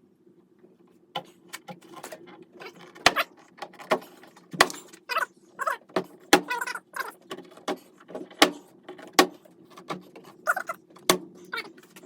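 Irregular sharp clicks and knocks, about one or two a second, with short pitched cries between them over a steady low hum.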